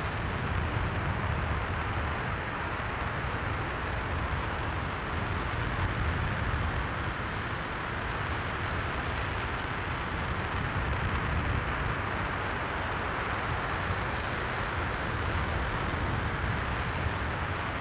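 RS-25 liquid-hydrogen/liquid-oxygen rocket engine firing on a test stand: a steady, unbroken roar of deep rumble and hiss at an even level.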